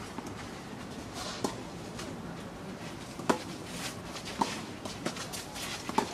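Tennis ball being struck by rackets and bouncing during a doubles rally: about four sharp pops a second or two apart, the loudest about three seconds in.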